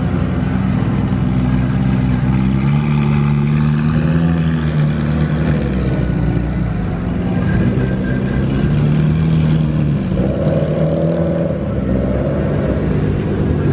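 Ferrari 458 Italia's V8 running at low revs as the car rolls away slowly, with a couple of brief, gentle rises in engine pitch under light throttle. Near the end a second car's engine passes close by.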